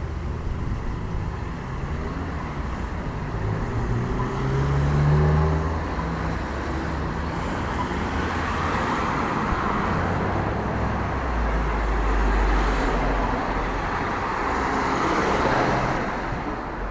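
Street traffic: cars and vans driving past one after another, engine hum and tyre noise swelling and fading as each goes by, with a deeper engine rumble about two-thirds of the way through.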